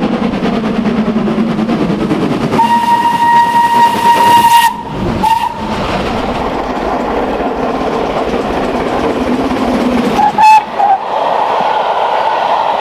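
Steam locomotive working, with a steady single-note whistle held for about two seconds a few seconds in and a short whistle pip later on.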